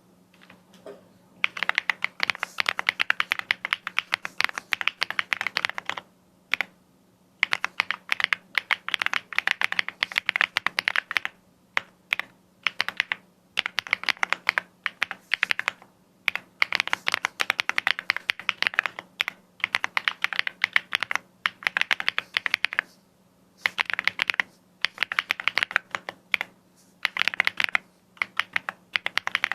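Typing on a Weikav Sugar65 gasket-mount 65% keyboard with an FR4 plate, PET sound pad and light linear switches. It comes as fast runs of keystrokes lasting a few seconds each, broken by short pauses.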